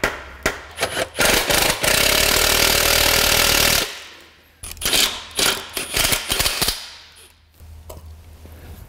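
Four mallet knocks driving a control-arm bolt home, then an impact wrench running a bolt in for about two seconds, followed by several more metal knocks and clanks against the steel subframe.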